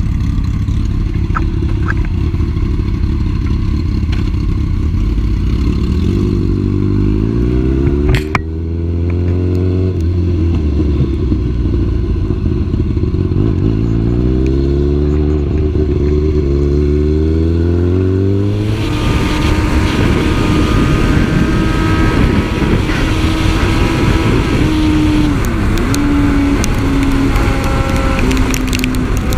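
Sport motorcycle engine idling, then pulling away and accelerating hard through several gears, the revs rising and dropping back with each upshift, with a sharp knock about eight seconds in. From about two-thirds of the way through, a loud rush of wind and wet-road noise at highway speed covers the engine's steady drone.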